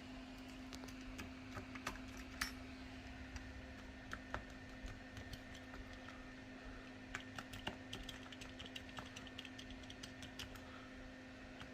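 Scattered light clicks and taps, irregular, with a quicker run of clicks about seven to nine seconds in, over a faint steady hum.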